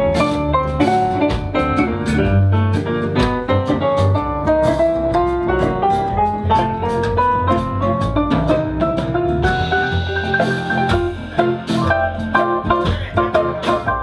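Jazz ensemble playing an instrumental passage live, with a drum kit keeping time under pitched instruments, and a melody line climbing steadily in pitch over several seconds.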